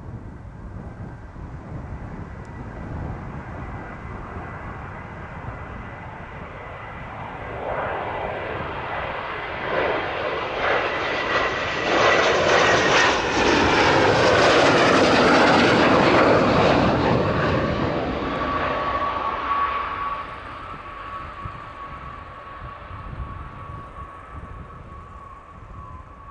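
Panavia Tornado jet on final approach for a touch-and-go, its twin RB199 turbofans growing louder as it nears and loudest as it passes close by. A high turbine whine drops in pitch as the jet goes past. The noise then fades, leaving a steady whine.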